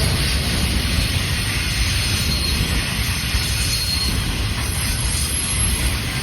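CN freight train rolling past: a steady rumble of the cars on the rails, with faint high wheel squeal now and then.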